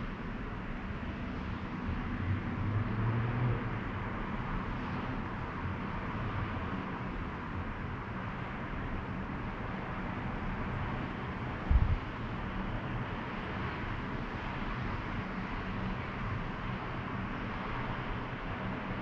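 Outdoor town ambience: a steady, even hiss with the low hum of distant traffic, and one brief low thump about twelve seconds in.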